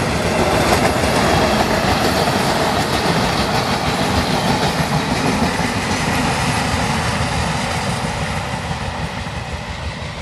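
Two-car diesel railcar running past, engine and wheels on the rails, loudest about a second in and then slowly fading as it draws away.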